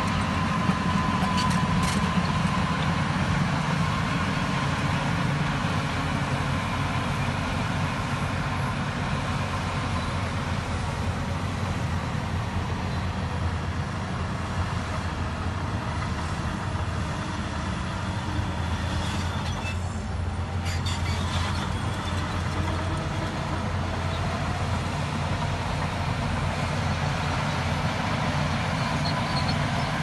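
Shantui crawler bulldozer's diesel engine running steadily under load as it pushes dirt, with a few short knocks about two-thirds of the way through.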